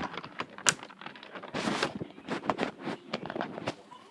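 Hard plastic Nerf blaster parts clicking, knocking and rattling as they are fitted together, with a brief scrape about one and a half seconds in.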